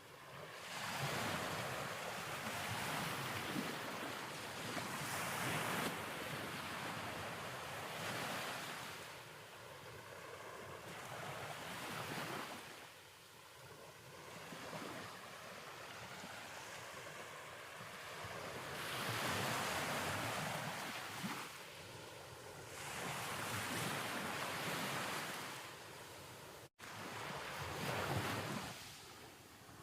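Ocean waves washing in, swelling and fading every few seconds, with a brief dropout in the sound near the end.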